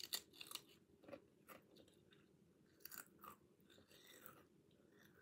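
A stacked potato crisp bitten off with a sharp crunch, then chewed, with several more crunches that grow fainter near the end.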